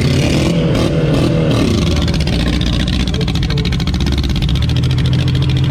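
Demolition derby car's engine running hard, heard from inside the car, with a rapid even firing rhythm. Its pitch bends up and down in the first couple of seconds as it revs, then it holds steady.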